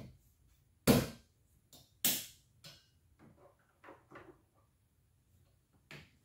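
Two sharp plastic clicks about a second apart, then softer taps and rattles, as a Bosch Icon wiper blade's plastic adapter is snapped and settled onto the hook of a car's wiper arm.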